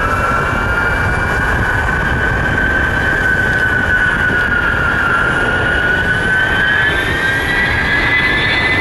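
Ilyushin Il-76 freighter's four Soloviev D-30KP turbofans whining loudly during its landing, a high screaming tone over a steady jet rumble. The whine sags slightly midway and climbs in pitch near the end.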